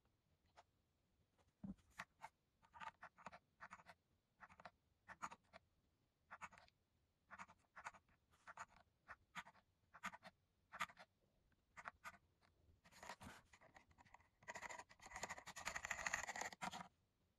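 Keys of an ASUS ROG Falchion 65% wireless mechanical keyboard clicking as they are pressed singly at an irregular pace, then a quick run of typing with both hands about three seconds before the end.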